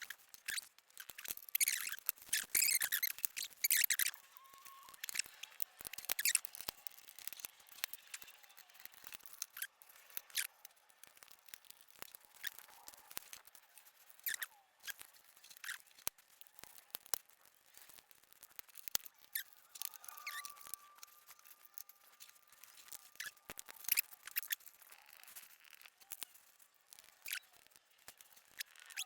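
Sped-up assembly sounds: scattered light clicks, taps and rustling as small wooden dock panels and packaging are handled and screwed together with a small hand screwdriver, with a faint drawn-out squeak about two-thirds of the way through.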